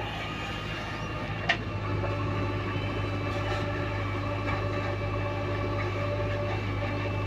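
JCB backhoe loader's diesel engine running steadily, with one sharp metallic knock about a second and a half in.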